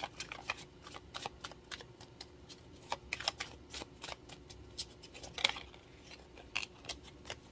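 A deck of tarot cards being shuffled by hand, the cards slapping and sliding against each other in irregular quick clicks and rustles, loudest about five and a half seconds in, over a faint steady hum.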